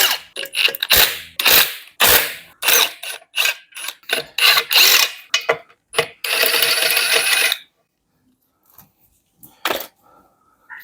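Power tool undoing the bolts of a Toyota 3S-GE engine's clutch pressure plate in short, irregular bursts with metallic clinks, then one longer run about six seconds in. It stops about seven and a half seconds in.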